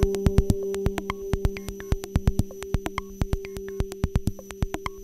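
Electronic background music: held synthesizer notes over a fast, steady drum-machine beat.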